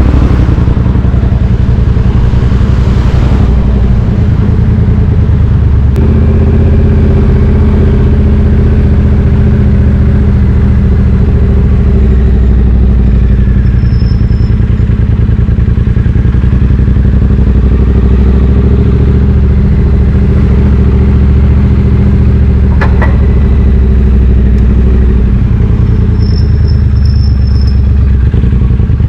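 Triumph Street Twin 900's parallel-twin engine running through British Customs slash-cut exhaust tips. Its note shifts a few times as engine speed changes. Brief high-pitched squeaks come about halfway through and again near the end.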